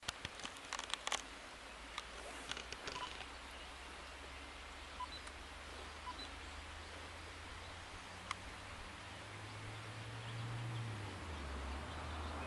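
Outdoor ambience through a camcorder's built-in microphone: a cluster of handling clicks at the start and a few more a couple of seconds in, a few faint short peeps, and a steady low hum that swells into a louder rumble near the end.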